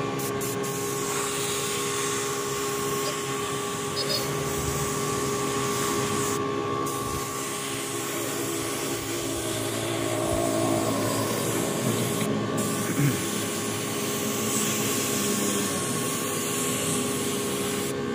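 Compressed-air spray gun with a gravity-feed cup hissing steadily as it sprays black toner lacquer onto polished wooden furniture, with a steady machine hum underneath.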